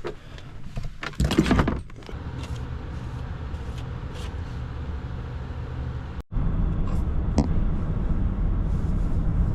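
Car on the move with a steady low rumble of engine and road noise, and a brief loud clatter about a second in. After an abrupt cut about six seconds in, the rumble is louder.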